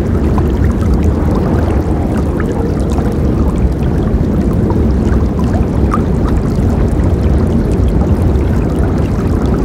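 Forest river flowing in a steady rush, with small splashes and gurgles scattered through it.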